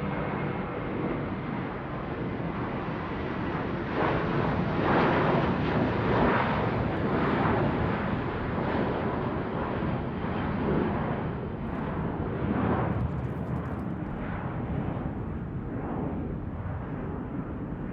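Airplane flying over: a rushing roar that swells about four seconds in, stays strong for several seconds and then slowly eases off.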